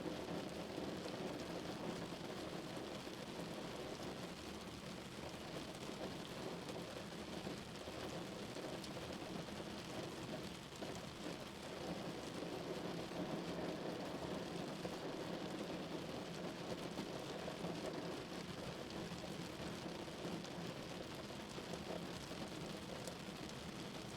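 Steady rain falling, an even wash of patter with no break.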